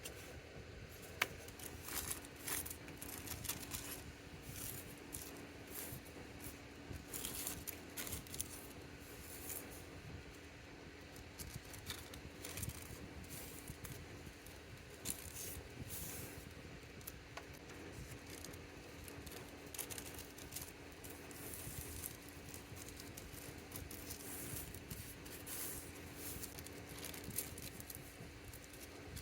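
Plastic bags, paper and sticker sheets rustling and crinkling as orders are packed by hand, with scattered small clicks and taps throughout. A faint steady hum sits underneath.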